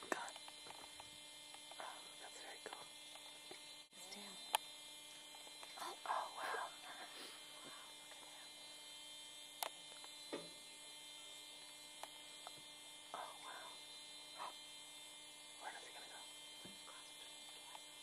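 A faint, steady hum, with a few soft clicks.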